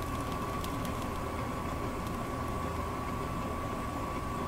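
Transformer soldering gun humming steadily with its trigger held, heating a twisted wire splice before the solder melts.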